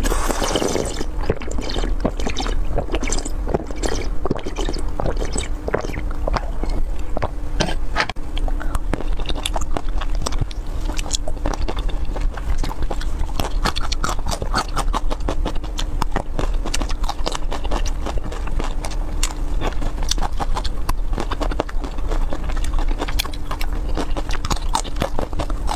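Close-miked eating sounds: a loud crunching bite into a hard candy lollipop in the first second, then continuous crunching and chewing, a dense run of sharp clicks, over a faint steady low hum.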